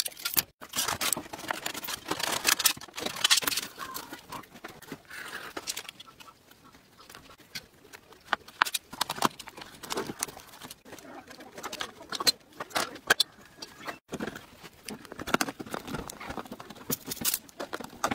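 Thin aluminium drink-can sheet being snipped with scissors, creased and handled: irregular sharp clicks and crinkling. The sounds are busiest in the first few seconds and again in the second half, quieter in between.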